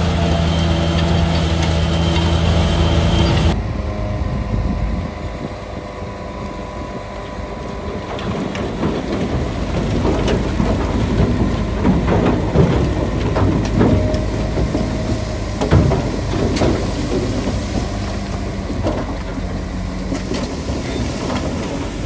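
Heavy earthmoving machinery: a large diesel engine running steadily, then, after an abrupt change a few seconds in, a rough rumble with many clanks and knocks from the work.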